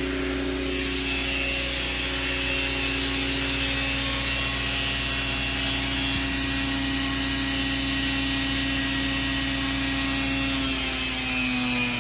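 Radio-controlled model helicopter, an Align T-Rex 600 ESP in a Eurocopter EC145 scale body, running steadily with a high motor whine and rotor hum. Near the end its pitch starts to fall as the rotor begins to slow.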